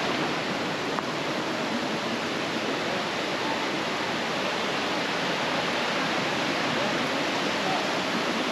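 Steady rush of a rocky mountain brook running over boulders and small cascades.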